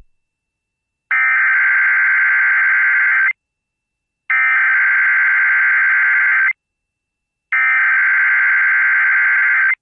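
Emergency Alert System SAME header: three identical bursts of screeching digital data tones, each about two seconds long, about a second apart, received over FM radio. They encode the alert's type (Child Abduction Emergency), area and timing ahead of the voice message.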